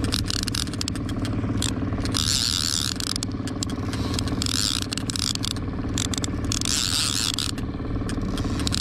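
Line-counter trolling reel (Magda Pro) being cranked in three spells of about a second each, a scratchy whir of the reel's gears, with scattered clicks, over the steady drone of the boat's outboard motor.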